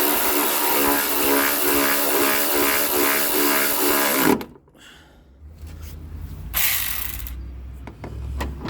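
Cordless power ratchet running on a suspension bolt with a quick pulsing chatter, then cutting off suddenly about four seconds in, as its battery dies. After it stops there is a low rumble and a brief hiss.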